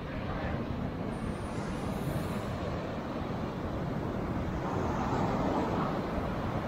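Surf washing up a sandy beach, with wind rumbling on the microphone.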